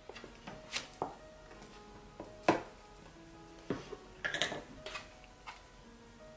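Spatula stirring thick dough in a plastic tub, with scattered knocks and scrapes against the container; the loudest knock comes about two and a half seconds in. Soft background music plays underneath.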